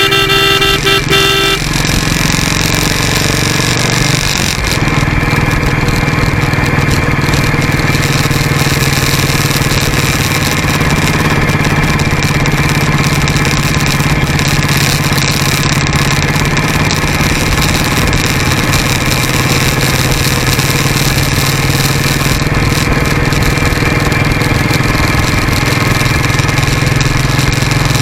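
Motorcycle running at road speed, its engine note steady under a rush of wind and road noise at a camera mounted low by the front wheel; the engine note shifts about four seconds in. A horn sounds for the first second and a half.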